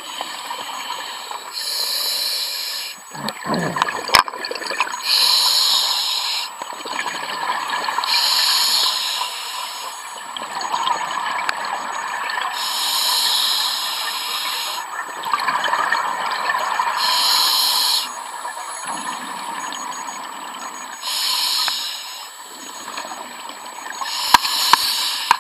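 Scuba diver breathing through a regulator underwater: a bubbling exhalation about every three to four seconds, with a quieter hiss between breaths. One sharp knock about four seconds in.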